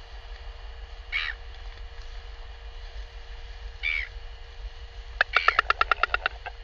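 Northern royal albatross snapping its bill in a rapid train of about a dozen loud clacks near the end, after two short cries earlier; bill-clapping is the bird's threat display at people coming close.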